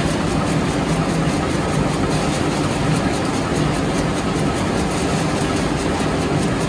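Brikol BT2000 wood-pellet line running: steady machinery noise from the pellet mill and the blue trough conveyor carrying freshly pressed pellets, with a low hum underneath.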